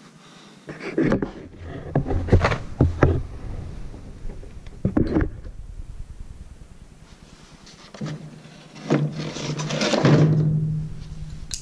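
Handling knocks and scrapes: a hard plastic tool case used as a deadfall weight and the trap's wooden trigger sticks being moved about on a concrete floor. A cluster of knocks comes a second or so in, a single knock about five seconds in, and a longer, louder scrape and clatter near the end as the case is lifted off.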